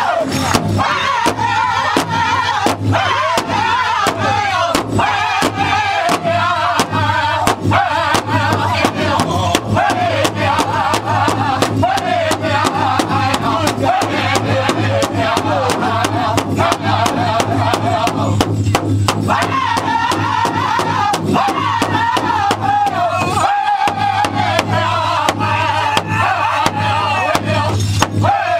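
Powwow drum group singing a Grand Entry song: several voices in high, wavering unison over a big powwow drum struck in a steady, even beat.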